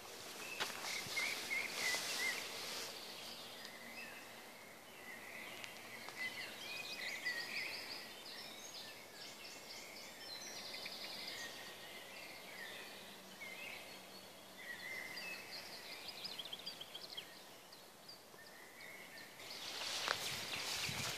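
Small songbirds singing, with short repeated chirps and trills. Footsteps are heard briefly at the start and again near the end.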